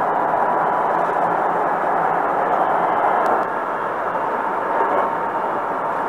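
Hankyu Kobe Line commuter train running between stations, heard inside the passenger car as a steady rumble of wheels on rail with a faint steady whine, easing slightly about three and a half seconds in.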